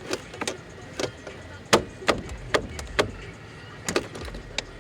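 About nine sharp clicks and knocks at uneven spacing, the loudest a little under two seconds in: hands and tools handling parts in a car door while a front speaker is being replaced.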